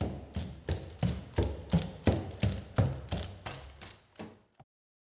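Cassie bipedal robot's feet striking the floor about three times a second as it walks, over a steady low hum from the robot. The sound stops abruptly shortly before the end.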